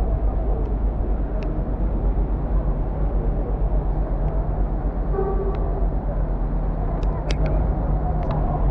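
Steady city-street traffic rumble. A brief tone sounds about five seconds in, and a few sharp clicks come near the end.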